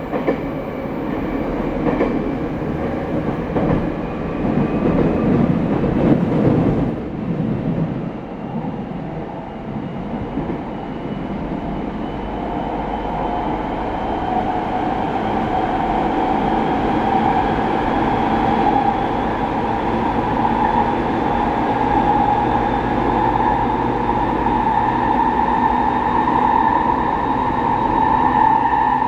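70-000 series electric train running between stations: rumbling wheel-on-rail noise, then from partway through a motor whine that slowly rises in pitch as the train gathers speed.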